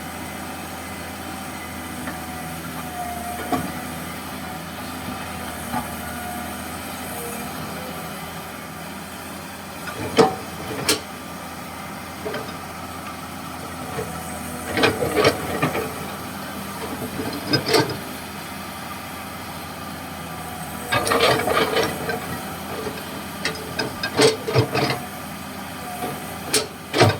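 Komatsu PC200-6 hydraulic excavator running steadily, with hydraulic hiss, while it digs. Short knocks and bursts of clatter come now and then, loudest about ten seconds in and in clusters later on.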